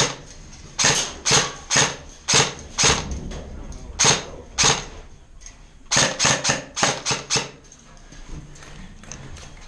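Airsoft rifle firing sharp single shots about half a second apart, then a quicker string of about five shots a second, each a loud snapping pop.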